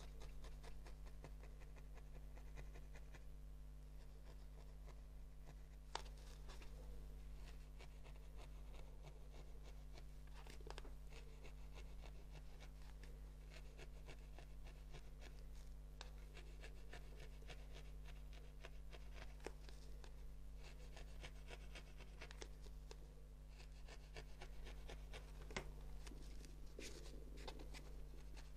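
Faint scratching and scattered light ticks of hands working wool roving for needle felting, over a steady low hum.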